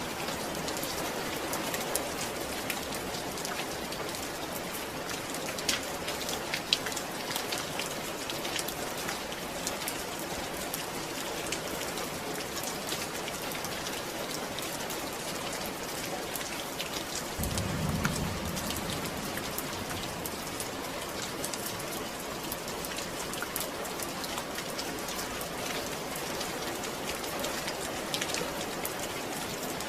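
Steady rain falling, with many distinct drops heard as sharp ticks. A brief low rumble about two-thirds of the way through.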